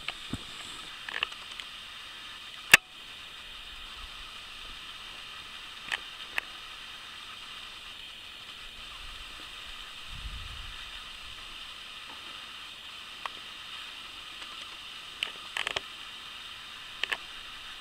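Steady faint outdoor hiss, with scattered small clicks from a handheld camera being moved. There is one sharp click about three seconds in and a brief low rumble near ten seconds.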